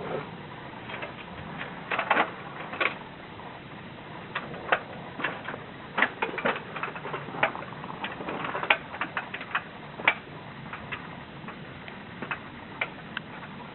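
Irregular sharp clicks and taps, some in quick clusters, over a steady low hum.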